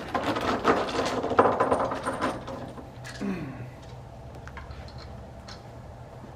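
A burst of metallic clattering and clicking, ratchet-like, for about two and a half seconds, then fading to a few scattered faint clicks over a low steady hum.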